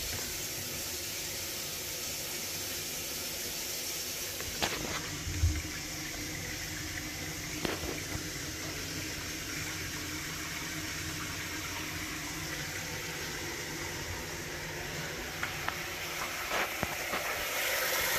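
Water from the tap running into a partly blocked kitchen sink and trickling through the plastic waste pipes beneath it, a steady rush with a few light knocks and one low thump about five seconds in. The water is slow to drain.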